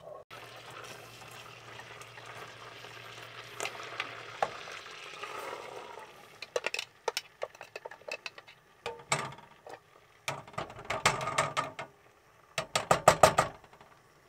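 Onions sizzling softly in melted margarine in a steel pot, then a spatula stirring and scraping round the pot with quick clicks and taps.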